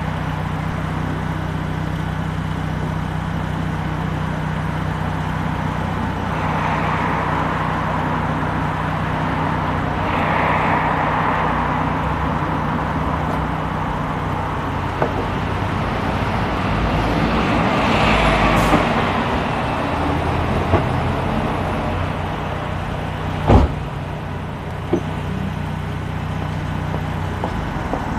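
City road traffic heard from a car driving through the streets: a steady low engine hum under the noise of passing vehicles, which swells a few times. A sharp knock comes about three-quarters of the way through.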